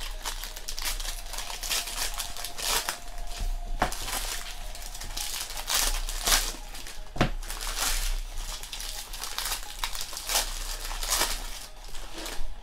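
Silver foil trading-card pack wrappers crinkling as they are handled and torn open by hand, in an irregular run of crackly crinkles.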